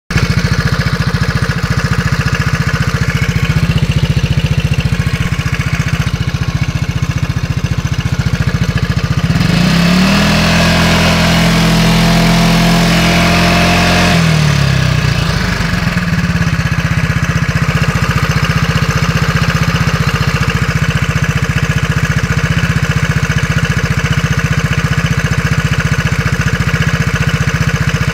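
SYM Fighter scooter engine idling with a rapid ke-ke-ke clatter from the cooling-fan side. The throttle is opened once about ten seconds in, the pitch rising, holding and falling back over about five seconds, then it returns to idle. The owner says the clatter comes only at idle and goes away when the throttle is opened.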